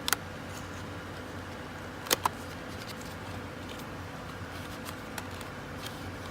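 Objects being handled: a sharp double click just after the start, two louder clicks about two seconds in, and a few faint ticks later, over a steady low hum.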